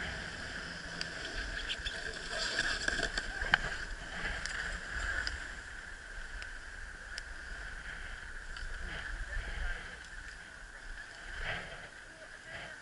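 Skis sliding and scraping over packed snow as a skier glides away from the lift, in uneven swells with a few small clicks, over a steady high hum.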